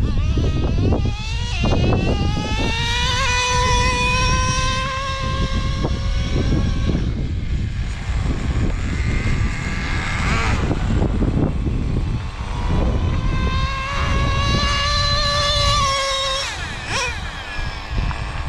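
Two-stroke nitro engine of a Traxxas Slayer Pro 3.3 RC truck revving up to a high, steady whine at full throttle, then backing off about 7 s in. It screams up again about 13 s in and drops away a few seconds before the end.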